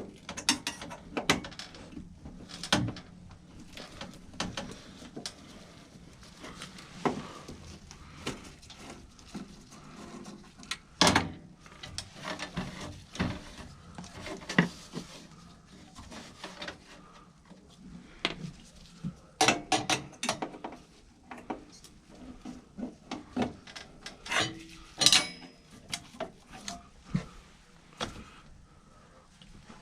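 Irregular clicks, knocks and rattles of hand tools and metal parts being handled while an HVAC inducer motor is removed, with several louder clusters of knocks.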